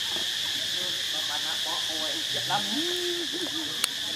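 Steady high-pitched insect chorus of cicadas or crickets, with a single sharp click a little before the end.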